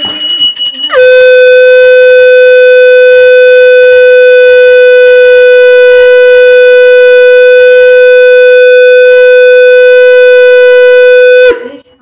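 Conch shell (shankh) blown in one long, steady blast of about ten seconds. It starts about a second in with a brief dip in pitch and cuts off sharply near the end. This is the customary conch call that closes an aarti.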